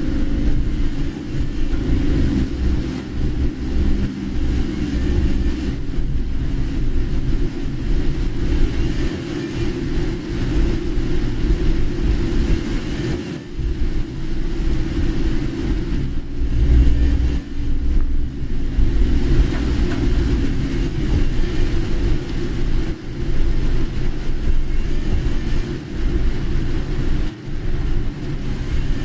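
Car being driven: a steady low engine rumble and road noise heard from inside the cabin.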